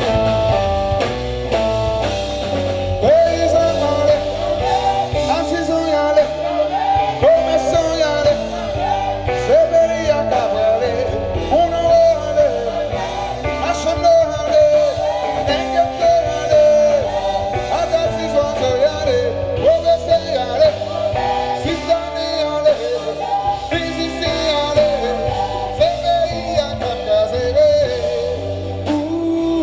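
Live band music: a bending lead melody over a steady bass line, with guitar in the mix.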